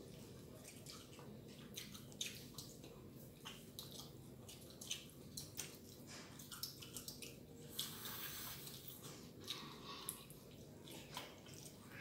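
Faint chewing and eating sounds with many small, sharp mouth clicks, and a brief louder rustle about eight seconds in.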